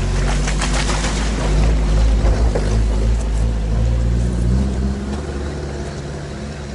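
All-terrain vehicle engine running under way, its pitch shifting partway through, with a noisy wash over it; it grows quieter near the end as the vehicle slows.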